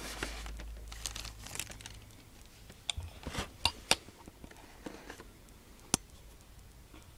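Plastic packaging of a boxed 1/6-scale collectible figure crinkling and rustling as it is handled, then several sharp clicks and snaps about three to four seconds in and one more near six seconds.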